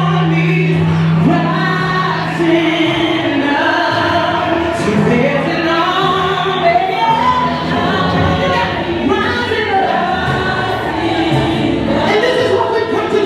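Gospel singing by a group of voices with instrumental backing, continuing steadily.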